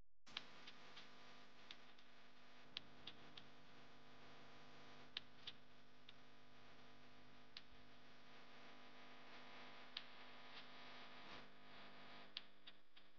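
Faint, irregular sharp clicks and crackles of conifer needles and forest duff being handled as a mushroom is dug out, over a faint steady hum.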